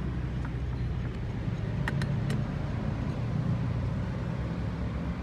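Steady low mechanical rumble, like a vehicle engine running nearby, with a few light clicks about two seconds in.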